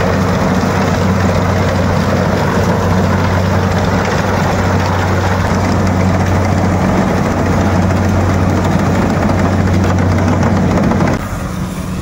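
Rice combine harvester running steadily while cutting and threshing the crop: a loud, even engine drone mixed with the rattle of the header and threshing drum. The noise drops away abruptly about a second before the end.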